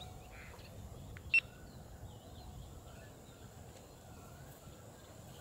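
Quiet open-field ambience: a low rumbling background with faint birds chirping, and one short, sharp chirp about a second and a half in.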